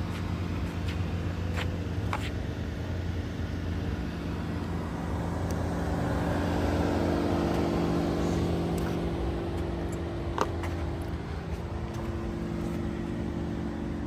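Steady low mechanical hum of several tones, with a vehicle passing that swells and fades about halfway through, and a few light clicks.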